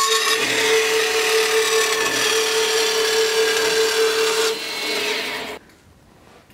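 Metal-cutting bandsaw running and cutting steel stock: a steady whine over a hiss. It drops in level about four and a half seconds in and stops abruptly about a second later.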